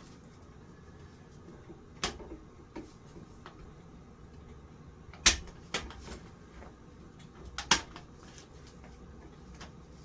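Sharp clicks and knocks of ceiling fan parts and tools being handled during removal. There are about half a dozen, the loudest about five seconds in and a close pair near the end.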